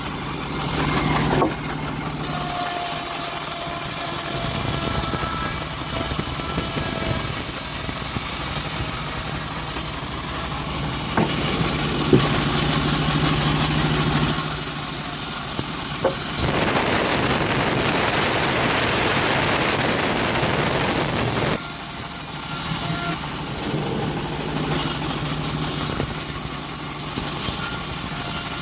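Homemade engine-driven bandsaw running steadily while its blade cuts through teak wood. A harsher sawing hiss swells for several seconds in the middle, then drops back to the running hum.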